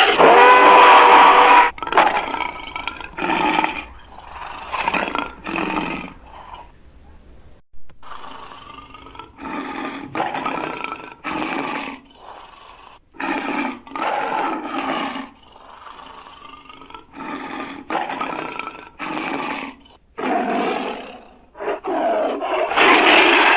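Sound-designed creature roars for a Kaprosuchus, a prehistoric crocodile relative: one long loud roar, then a string of short separate calls with gaps between them, and another long loud roar starting near the end.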